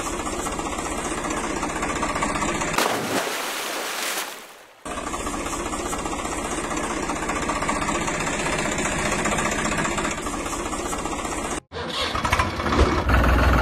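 An engine running steadily with a fast, even chugging. It is broken by abrupt edits, one about three seconds in and a hard cut near the end.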